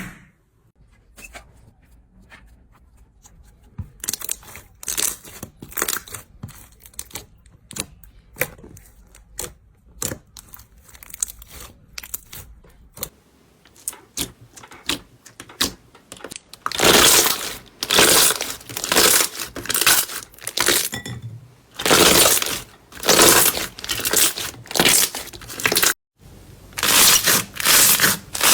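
Slime being pressed and squeezed by hand: soft crackles and clicks at first, then from about halfway through a run of loud crunching squeezes, each lasting about a second.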